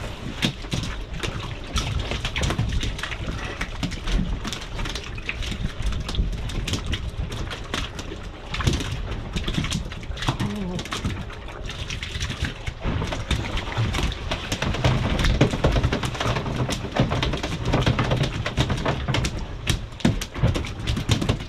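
Wind buffeting the microphone and water slapping against a boat hull, an uneven low rumble broken by many small knocks and splashes.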